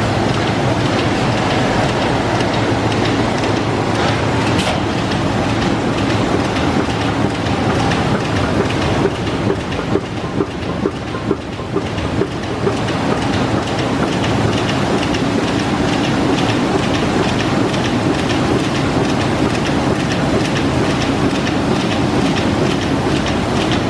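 Sheet-fed offset printing press running: a steady mechanical din with an even clatter of about three clacks a second.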